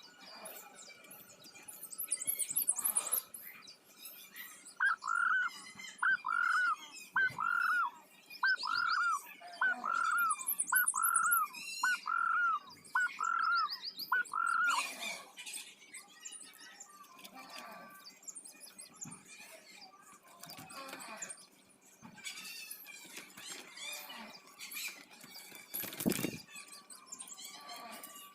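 Birds calling: one bird repeats a clear, arched call about once a second for some ten seconds, while other small birds chirp and trill in high, thin notes throughout.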